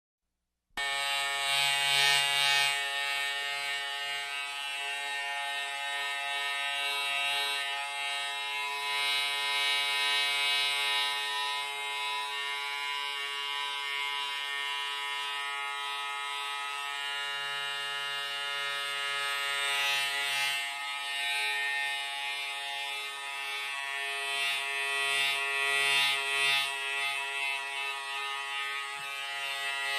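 Electric hair clipper running with a steady, even buzz that starts abruptly just under a second in.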